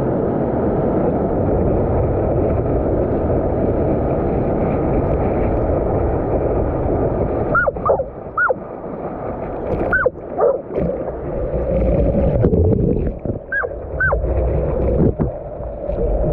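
A dog barking on a surfboard, about seven sharp barks in three quick bursts starting about halfway through, over a steady rush of surf and water around the board.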